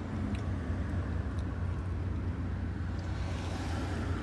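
Steady low hum of a car idling, heard from inside the cabin, with a few faint light clicks. A soft hiss rises near the end.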